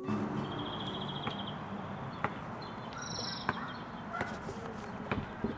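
Outdoor ambience with birds chirping: a short high trill about half a second in and another around three seconds in, plus scattered small chirps, over a steady background hiss. A few faint sharp clicks sound here and there.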